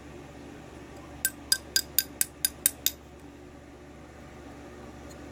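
Small metal lock-cylinder parts clinking: about nine quick light taps, roughly five a second, each ringing briefly at the same bright pitch, then they stop.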